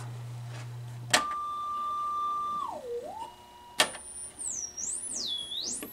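Sine test tones from an audio generator played through a 1982 EPI Model 100 two-way bookshelf speaker. A low hum from the 8-inch woofer cuts off with a click about a second in, then a tone near 1 kHz dips in pitch and comes back. After a second click, a very high tone from the tweeter swoops down and up twice, showing that the drivers work.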